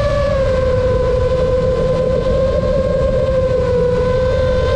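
FPV drone's motors and propellers whining at a steady pitch with a string of overtones, the pitch easing slightly lower just after the start and again near the end, over a low rumble.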